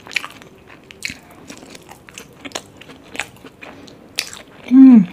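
Close-miked eating sounds of dumplings being chewed: a run of wet mouth smacks and clicks. Near the end comes a short, loud voiced sound falling in pitch.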